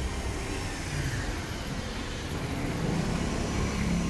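Street traffic: a motor scooter's engine running close by near the start, then another vehicle's engine hum growing louder toward the end.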